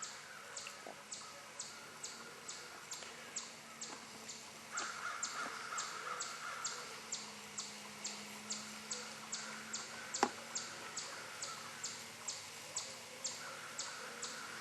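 Quiet outdoor ambience: a high, short chirp repeats evenly about two and a half times a second, with harsher cawing calls about a third of the way in and again near the end, and a single sharp click about two-thirds through.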